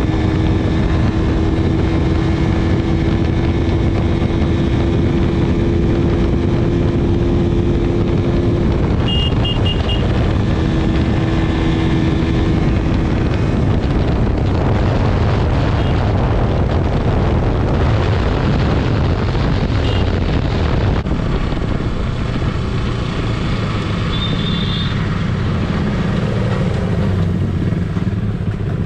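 Motorcycle under way, its engine running with a note that climbs slightly and holds, under a heavy rush of wind. Short high tones sound about a third of the way in and again near the end.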